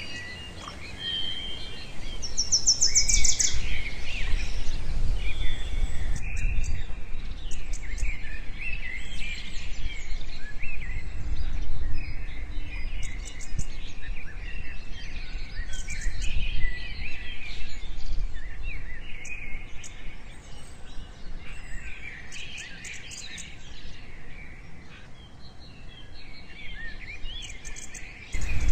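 A chorus of small songbirds chirping and singing, with fast trills among the calls, over a low rumble.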